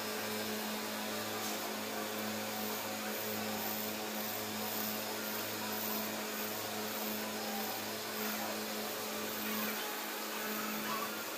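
Glass edge-polishing machine running with a steady mechanical hum and an even whir.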